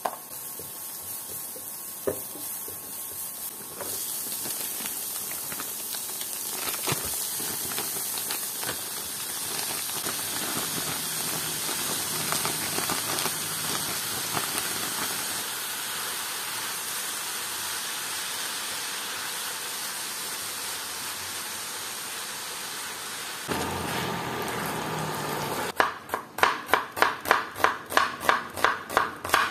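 Food sizzling as it fries in a pan, a steady hiss with a few knocks. About 26 s in, rapid knife chopping on a cutting board starts, about five strokes a second.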